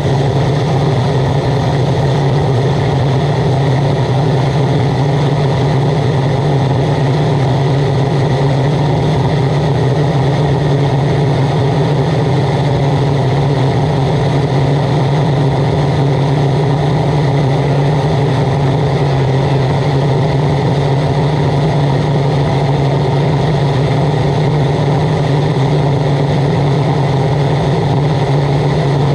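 Waste oil burner running steadily, its blower and flame giving a continuous rushing noise over a low, even hum.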